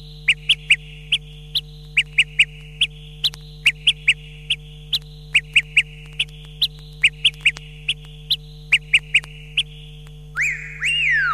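Breakdown of an electronic dance track: short, high chirping blips at an uneven pace, about three a second, over a steady low drone. Near the end a synth tone swoops up and slides down in pitch.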